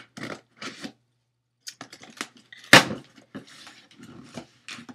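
Shoe packaging being handled and opened: short crinkling and rustling bursts, with a pause about a second in and one sharp knock just under three seconds in.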